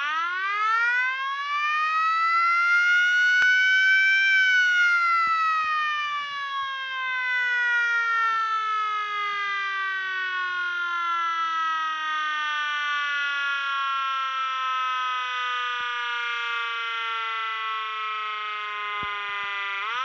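B&M Super Chief mechanical fire-truck siren winding up to a high wail over about four seconds, then slowly winding down through the rest, and starting to wind up again right at the end.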